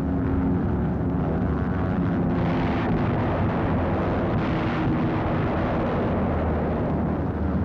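Battle sound effects dubbed over wartime aerial footage: a steady drone of aircraft engines mixed with the rumble of bomb explosions, swelling briefly about two and a half seconds in and again at four and a half seconds.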